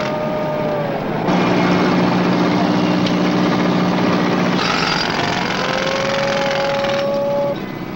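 Construction machinery running at a street work site: a steady engine drone with a whining tone. The sound changes abruptly about a second in and again near five seconds.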